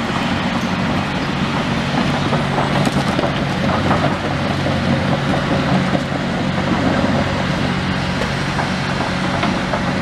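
Hyundai tracked excavator's diesel engine running steadily, with scattered light knocks and clatter over it.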